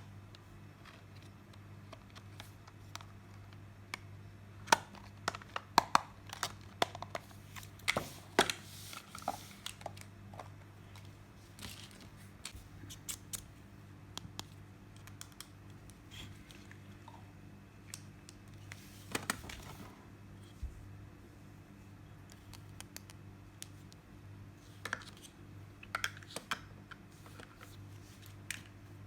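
Scattered clicks, taps and crinkles of small plastic toy parts and packaging being handled, in clusters, over a faint steady hum.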